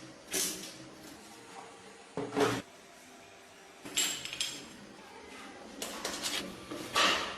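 Short clinks and clatters of metal parts and tools being handled and set down, about five separate bursts a second or so apart, the loudest near the end.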